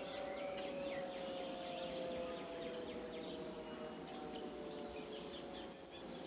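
Outdoor warning siren winding down at the end of a test, its tone sliding slowly lower and fading. Birds chirp throughout.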